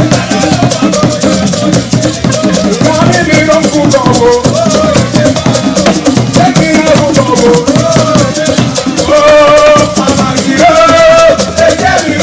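Upbeat music with a shaker keeping a fast, steady rhythm under a wavering melody line, over drums.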